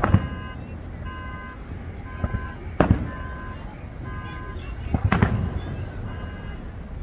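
Aerial firework shells bursting in three booms: one right at the start, one near the 3-second mark, and one about 5 seconds in with a longer rumbling crackle. Under them a car alarm beeps over and over, about once a second.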